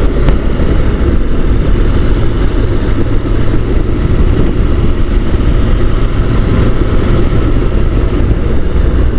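Honda NC750 motorcycle riding at a steady cruising pace: the parallel-twin engine's drone under a loud, steady rush of wind on the helmet microphone. A brief click comes just after the start.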